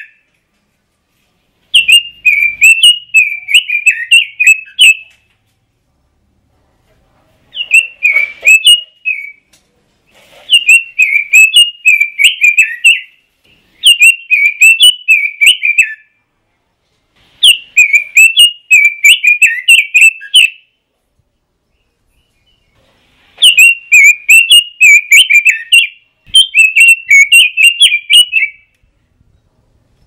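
Red-billed leiothrix (Pekin robin) singing: seven rapid warbling phrases of about two to three seconds each, with short pauses between them.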